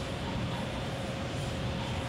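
Steady construction-site machinery noise: an even rumble and hiss with a faint constant whine.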